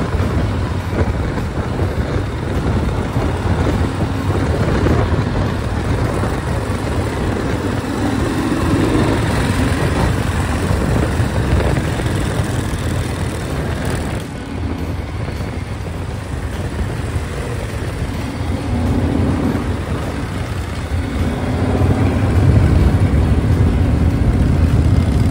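V-twin chopper motorcycles riding in traffic, their exhausts running with wind and road noise, getting louder near the end.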